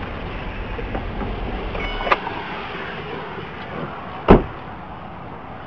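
A car door slammed shut once, sharp and loud, about four seconds in. Before it, near two seconds in, comes a smaller click with a brief electronic beep.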